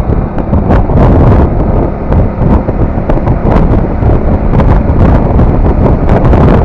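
Wind rushing and buffeting over the microphone of a moving motorcycle, with the bike's engine running underneath.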